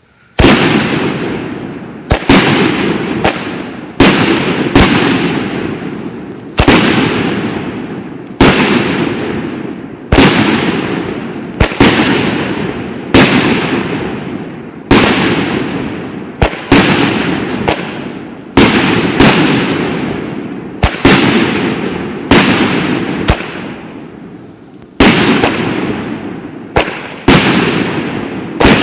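Consumer aerial fireworks cake firing shot after shot, about one bang every second or two, each a sharp report followed by a long decaying rumble and echo.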